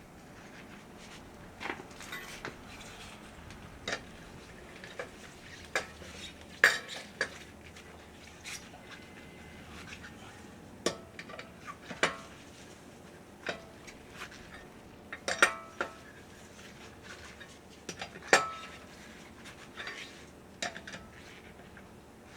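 Scattered metallic clinks and knocks at irregular intervals, with short rings after the sharper ones. These are metal tools and parts being handled during a car tyre change.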